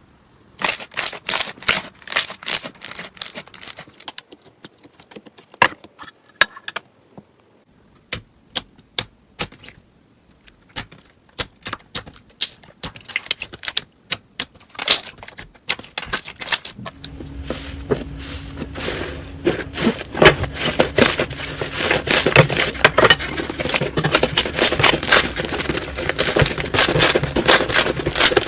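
Slime being squeezed and poked, giving sharp clicks and crackles. They come one by one at first, then turn dense and almost continuous about halfway through.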